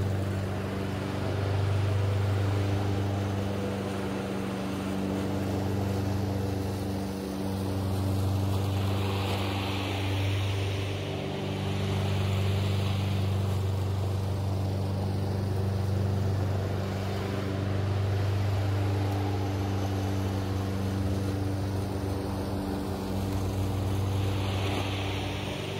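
Small petrol lawn-equipment engine running steadily at constant speed, its level swelling and easing every few seconds.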